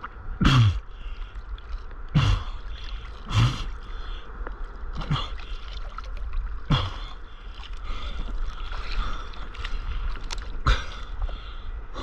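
Sea water sloshing and splashing right at a camera riding at the water's surface, with about six sharp splashes, each followed by a brief falling gurgle, over a steady low rumble of moving water.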